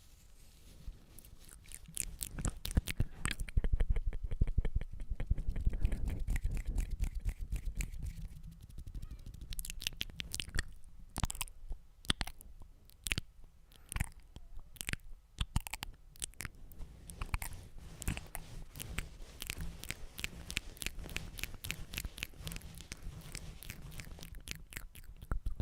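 Close-miked wet mouth sounds: quick runs of tongue and lip clicks, thinning to single spaced clicks about halfway through, then quickening again.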